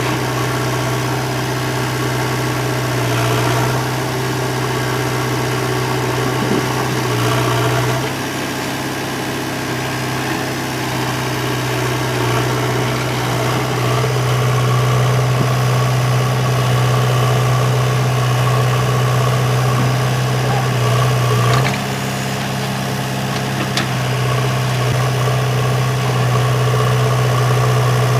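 Heavy diesel engine running steadily at a low, even rumble. It drops slightly in level about 8 seconds in and again about 22 seconds in.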